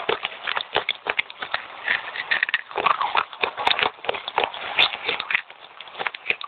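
Wet red clay chips being chewed fast, a dense run of irregular crisp crunches close to the microphone.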